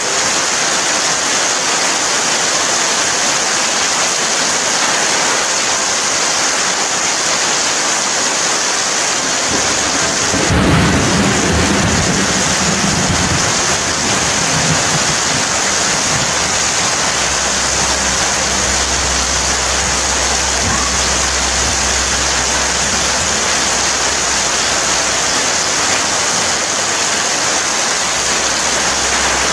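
Steady heavy rainfall, with a roll of thunder about ten seconds in that rumbles for a few seconds. A low rumble then stays under the rain.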